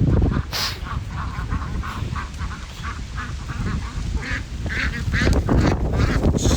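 Domestic ducks quacking in a rapid run of short calls, about four a second, over a low rumbling noise.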